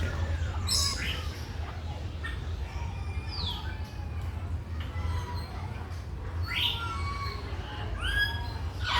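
Birds calling: four or five separate pitched calls a second or more apart, some sliding down in pitch, over a steady low hum.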